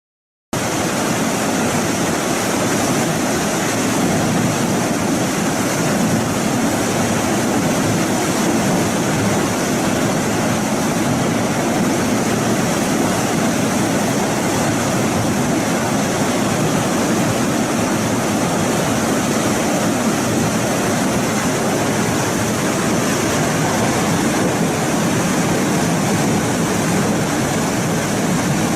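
A loud, steady rushing noise with no distinct knocks, tones or changes, starting abruptly about half a second in.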